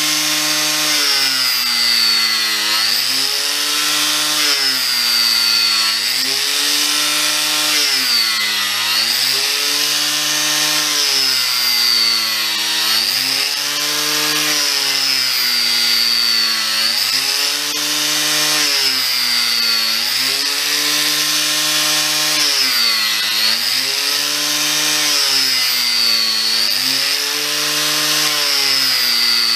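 Angle grinder cutting into the end of a solid French oak beam to round it off. The motor's whine is steady and loud, sagging and picking back up about every two seconds as the disc bites into the wood.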